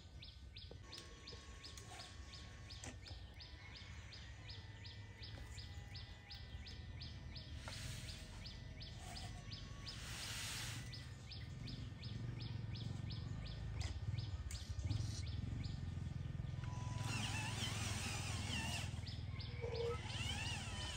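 Radio-controlled toy dump truck tipping its loaded bed: a motor hum builds under a steady ticking of about three a second, and about ten seconds in there is a short rush of sand sliding out of the raised bed. Birds chirp near the end.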